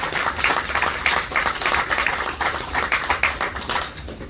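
Audience applauding, with many people clapping, dying down near the end.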